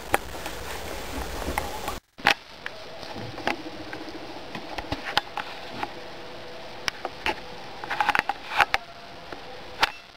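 Irregular small clicks and rustles, with a quick run of clicks near the end, from a pet pouched marmot nibbling leafy greens.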